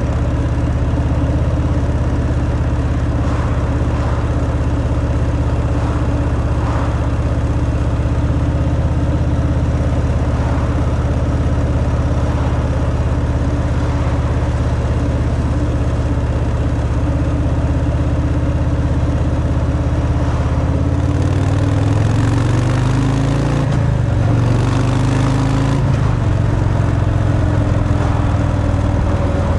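Harley-Davidson Fat Boy's Milwaukee-Eight 114 V-twin running through its stock exhaust at a steady cruise. About two-thirds through, the engine note rises and falls a few times as the speed changes, with more rushing noise, then holds steady again.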